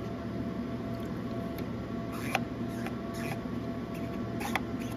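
Steady hum of the DTF printer standing switched on, with a few short squeaks and rubs as a foam swab wipes the rubber capping station.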